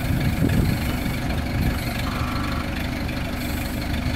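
Rough-terrain forklift's engine running steadily at low revs, a constant low hum.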